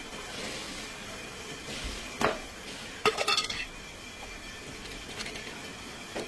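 Metal clinking and knocking: one sharp knock about two seconds in, then a quick clattering run of clinks a second later, over a steady low hiss.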